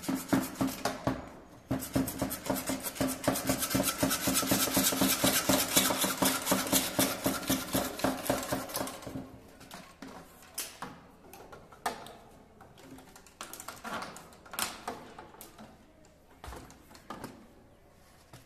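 Hacksaw blade sawing through PVC electrical conduit pipe in rapid back-and-forth strokes for about nine seconds, then scattered clicks and knocks as the cut pipe is handled.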